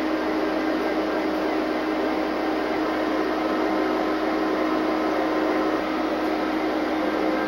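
Steady mechanical hum and rush inside the cab of an EMD SD60M diesel-electric locomotive, with a constant low droning tone, as the unit's engine and blowers run at idle.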